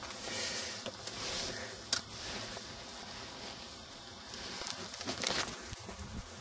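Faint rustling of a handheld camera being moved and footsteps on paving, with a sharp click about two seconds in and another near five seconds.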